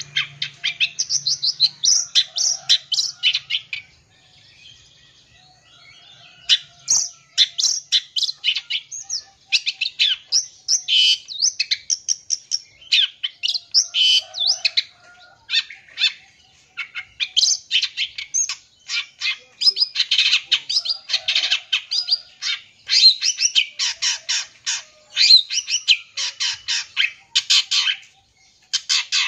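Long-tailed shrike (cendet) singing a fast, chattering song of short high notes strung together in rapid runs, a song filled with imitations of other birds. It quietens for a couple of seconds about four seconds in, then carries on with brief breaks near sixteen seconds and near the end.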